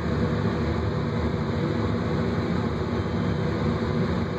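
Passenger elevator car riding upward: a steady low rumble heard inside the closed cab.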